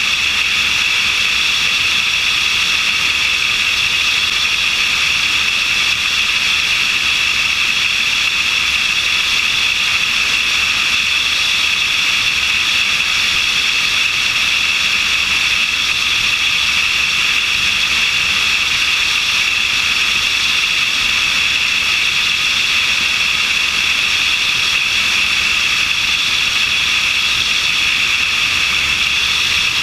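Steady, unchanging noise of a light aircraft in flight, picked up by a camera on its wing: engine and propeller drone mixed with rushing airflow, heavy in the upper range.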